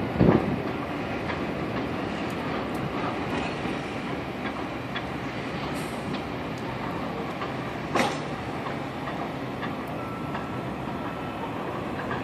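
Steady low rumbling noise, with a sharp knock about a quarter second in and another about eight seconds in.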